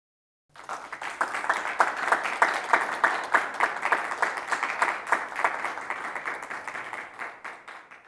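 Audience applauding: dense clapping that starts about half a second in and fades away near the end.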